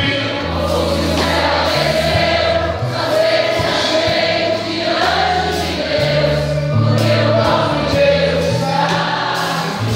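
Live gospel music: a band with drums and bass plays while many voices sing together.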